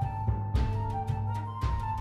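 Interlude music: a held, sustained melody over deep drum beats.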